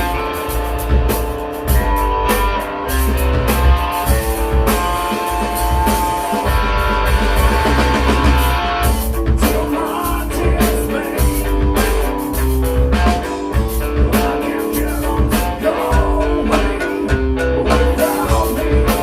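Live rock band playing: electric guitar, bass and drum kit, with some singing.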